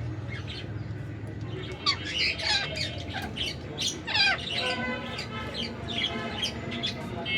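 Parrots squawking: a rapid string of short, harsh calls, some overlapping, beginning about two seconds in.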